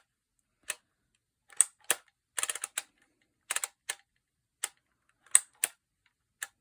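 Phomemo E975 handheld embossing label maker being worked letter by letter: sharp plastic clicks, about a dozen, spaced irregularly and often in pairs as a character is selected and the handle squeezed and released to punch it into the tape.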